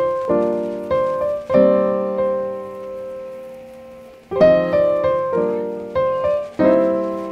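Background piano music: chords struck every second or so and left to ring and fade, with one long fading chord in the middle.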